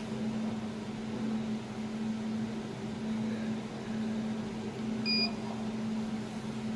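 Steady hum of a running water-cooled desktop jewelry laser welding machine, with one short electronic beep from its control panel about five seconds in.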